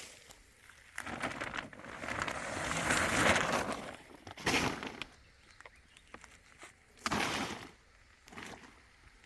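Plastic rubbish bags rustling and crinkling while things are cleared away: a long stretch of about three seconds, then several shorter bursts.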